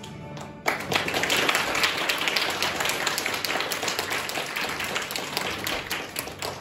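Audience applauding. It breaks out suddenly about a second in and dies down near the end.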